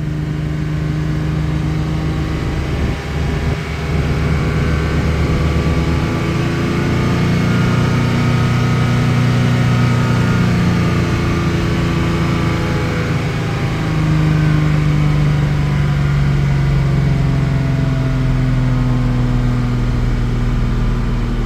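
1987 Jaguar XJ-S 3.6's straight-six engine held at mid revs, about 2,000 to 3,000 rpm, with the revs eased up and down slowly a few times. At these revs it runs without obvious complaint; its misfire fault shows up lower down, below 2,000 rpm.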